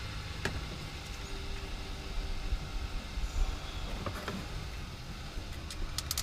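Sealey hand-operated mini pump being worked to push gear oil into a manual-transmission gearbox during a refill, giving a few sharp clicks and knocks from the plunger and hose over a steady low rumble.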